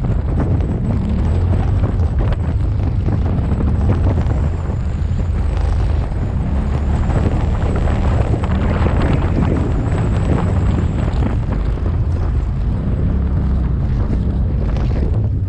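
Engine of an off-road vehicle running steadily as it drives over a dirt trail, a low rumble mixed with wind buffeting the microphone.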